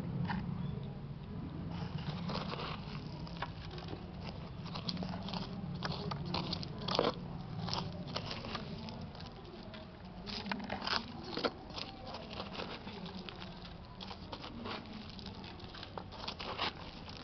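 Fingers digging and scraping through dry potting soil and fine roots in a small pot to get at ginger rhizomes: irregular crunching, crackling scrapes and small clicks, with a low steady hum underneath.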